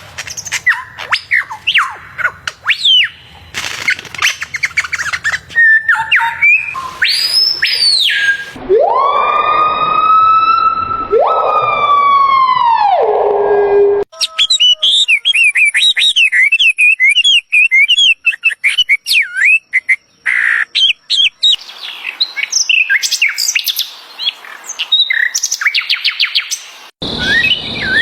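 Birds chirping and calling in quick, varied phrases and trills. In the middle, a long smooth whistle rises, holds and falls again over about five seconds.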